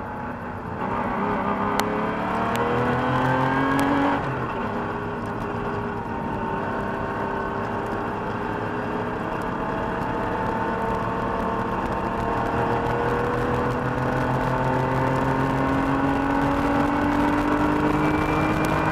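Air-cooled 3.2-litre flat-six of a 1985 Porsche 911 Carrera heard from inside the cabin under hard acceleration: the engine note climbs, drops abruptly about four seconds in, then rises slowly and steadily for the rest.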